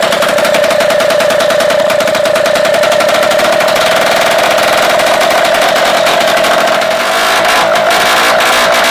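A Solex 2200 moped's small two-stroke engine runs on its own with a fast, crackling buzz just after first starting, restricted (bridé) as standard. About seven seconds in it dips briefly, then settles a little higher as the choke is eased.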